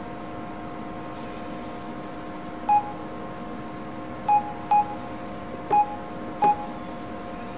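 Keypad tones of an LG touchscreen mobile phone as a number is dialled: five short beeps of the same pitch, one per key press, spread unevenly with two close together in the middle. A steady hum runs underneath.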